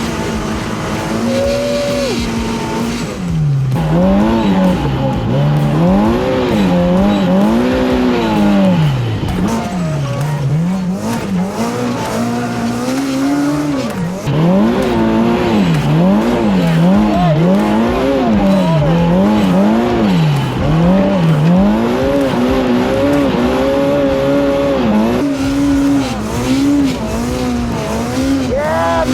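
Side-by-side UTV engine revving up and down over and over as the throttle is worked hard in deep snow, with a steadier high-rev stretch a little past the middle.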